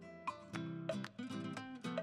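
Background music: a plucked string instrument playing a steady run of notes and chords.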